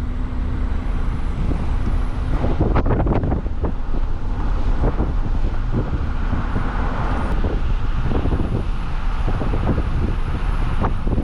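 Hurricane winds gusting over the microphone: a deep, uneven rumble with rushing noise and irregular crackling buffets.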